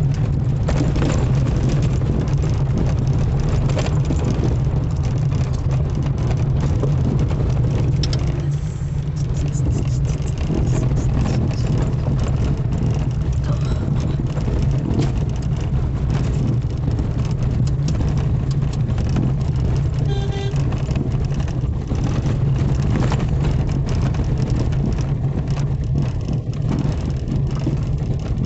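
Car cabin noise while driving: a steady low engine and road rumble. A short pitched beeping tone comes about two-thirds of the way through.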